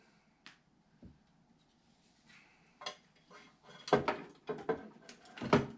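Computer parts being handled in a PC case: a couple of faint clicks, then from about halfway a run of sharp knocks and clatters.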